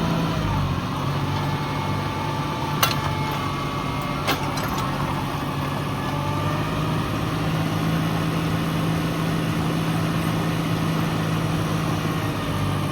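Tractor engine running steadily while digging, with two sharp knocks about a second and a half apart, a few seconds in.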